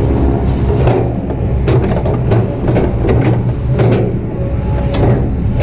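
Kobelco SK200-8 hydraulic excavator's diesel engine running steadily under working load, with repeated short clanks and squeaks from the boom, arm and bucket as it works.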